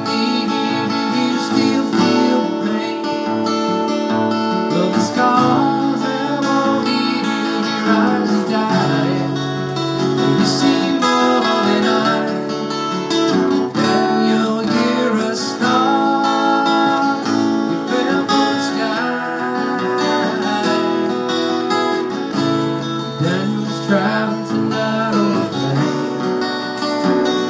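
Solo acoustic guitar strumming chords, with changes every second or two, in an instrumental break between the sung verses of a song.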